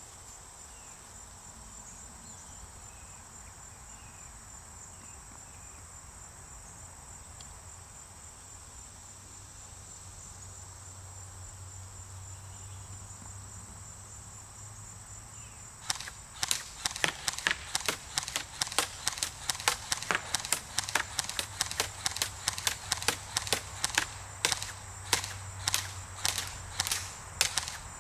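Crickets chirp steadily. About 16 seconds in, a GameFace GFM4 airsoft M4 rifle starts firing sharp shots in quick succession, several a second and unevenly spaced, and keeps firing to the end.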